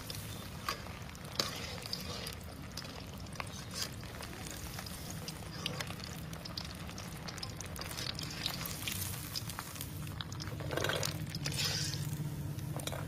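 Banana pieces deep-frying in hot oil in an iron kadai: steady sizzling with many scattered crackles and pops.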